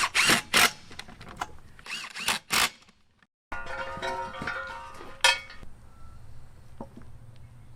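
A few short knocks and bursts of noise, then a sudden cut to background music with steady held tones.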